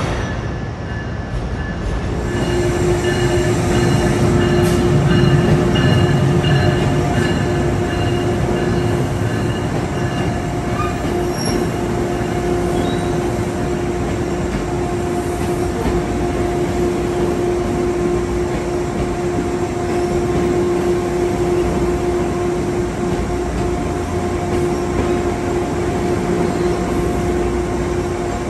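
Passenger train moving through the station over a low rumble, with a steady high whine that comes in about two seconds in and holds.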